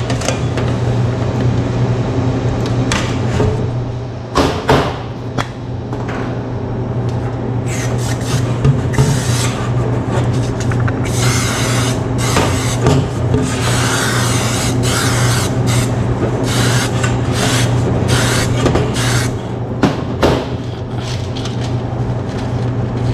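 Metal springform cake pan knocked and clinked on a steel counter as it is handled, with several short hisses from an aerosol can of cooking spray partway through. A steady low hum runs underneath.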